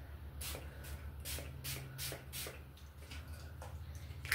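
Pump-spray bottle of body splash spritzing onto hair in a quick series of short hissing puffs, about two a second, with a sharper one near the end.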